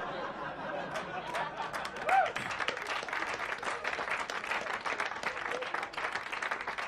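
Audience applauding, with one voice briefly calling out about two seconds in.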